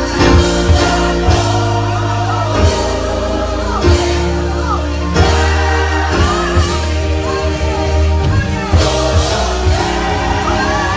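Gospel music in church: a choir singing with instrumental backing.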